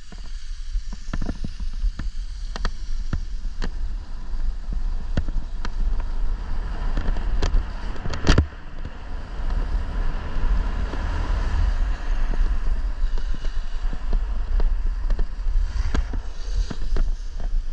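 Wind buffeting the microphone while riding down a ski slope, with a steady rushing hiss of sliding on snow. A few sharp knocks cut through, the loudest about eight seconds in.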